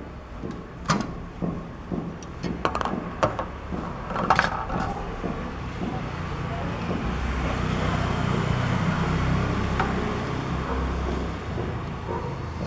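Several sharp clicks and knocks from a hand-cranked Meccano ball lifter and its metal parts, then a ping pong ball rolling down a track of Meccano metal strips with a low rumble that builds and fades over about five seconds.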